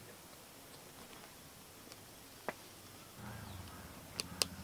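Wooden ice-cream sticks being pushed through plastic cling wrap into a plastic popsicle mould, giving a few faint clicks with two sharper ones near the end. A low hum comes in about three seconds in.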